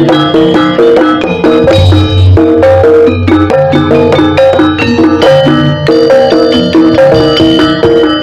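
Live Javanese jaranan ensemble music: a fast, even run of short struck pitched notes from metal percussion over a pulsing low drum.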